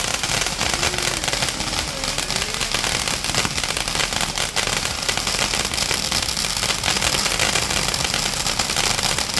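Firecrackers going off in a rapid, continuous crackle of small bangs, with no break.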